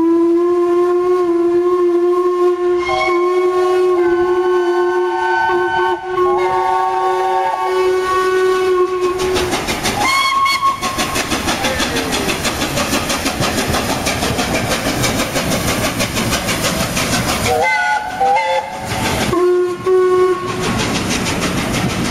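Two steam locomotives exchanging whistles: a long chime whistle holds several notes that shift for about nine seconds, then a short blast comes about ten seconds in and two more near the end. From about eleven seconds in, the LNER A1 Pacific 60163 Tornado works past at close range hauling its coaches, with rapid exhaust beats and wheels clattering over rail joints.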